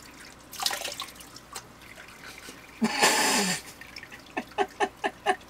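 A thin stream of water from a handheld sprayer hose trickling into cupped hands and splashing at a sink as a face is rinsed, with a louder splash about three seconds in. Near the end, short rhythmic bursts of laughter.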